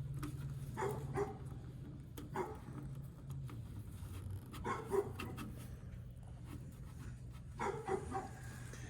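A dog barking in short bursts, in several small groups, over a steady low hum.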